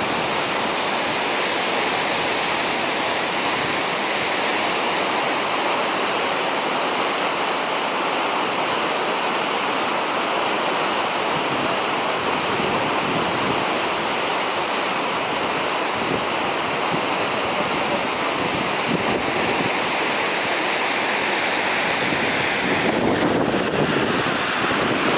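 Waterfall rushing: a loud, steady noise of falling water that holds unbroken, growing a little fuller in the lower range near the end.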